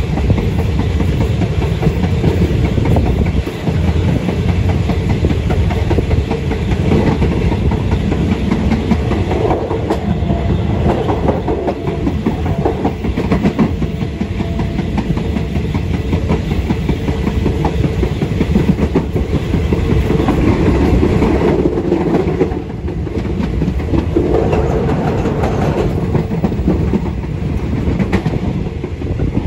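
Passenger train running at speed, heard from the rear of the last coach: a steady, loud rumble and clatter of steel wheels on the rails.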